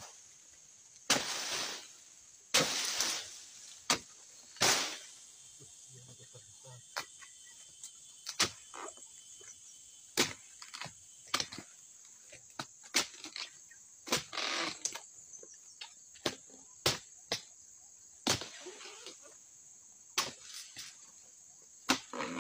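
Oil palm fruit bunches and fronds being cut by hand with a long-handled harvesting blade: irregular sharp chopping strikes, some followed by a second-long rustle of fronds. Under them runs a faint steady high insect drone.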